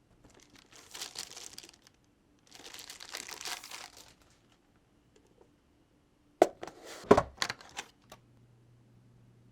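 Plastic packaging crinkling in two handlings, then a quick run of sharp clicks and clacks about six and a half seconds in, the loudest sounds in the stretch.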